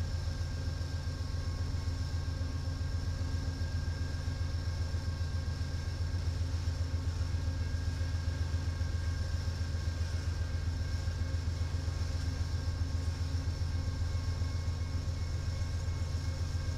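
Amtrak diesel passenger locomotives standing and idling: a steady low engine rumble with a constant high whine over it.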